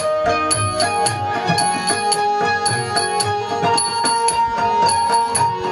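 Instrumental interlude of a devotional Shiva bhajan: tabla drumming under small metallic strikes about twice a second, with held melodic notes that step to new pitches.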